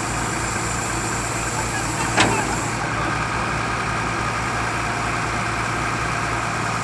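Excavator's diesel engine running steadily, with a single sharp knock about two seconds in.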